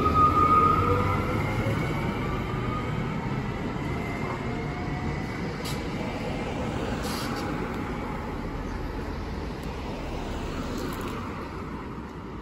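Nancy's rubber-tyred tram running in road mode, passing close by with a whine that shifts in pitch over tyre and running noise, then fading as it pulls away, with other street traffic around it.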